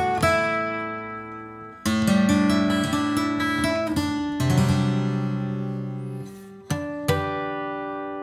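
1962 Gibson J-45 round-shoulder acoustic guitar played: chords strummed and left to ring, a new chord every second or two, the last one struck about seven seconds in and fading slowly.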